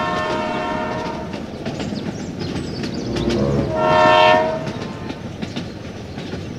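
Toy steam train running on its track with a steady chugging noise, and a steam-whistle toot once about four seconds in.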